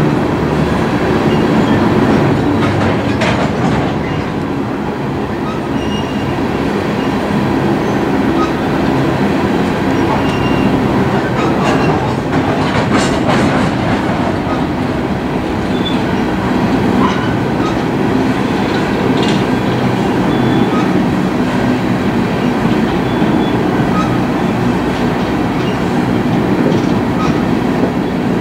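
Union Pacific coal train's gondolas rolling past at steady speed: a continuous rumble of wheels on rail, with clicks over rail joints and a few brief, faint wheel squeals.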